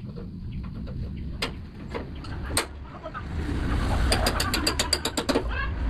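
A ratchet wrench clicking in a quick run of about eight clicks a second as it tightens a coil-over shock absorber's mounting bolt, after a few single metal taps. A low vehicle rumble swells underneath, with birds chirping.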